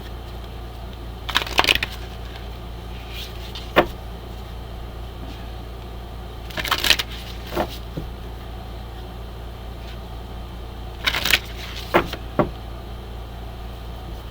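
Oracle cards being shuffled in three short rustling bursts, with single sharp clicks of the cards between them, over a steady low hum.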